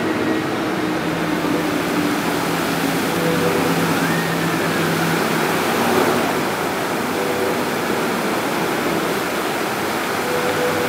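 Fountain jets spraying and splashing down into a shallow pool: a steady rush of falling water, with a faint steady hum underneath.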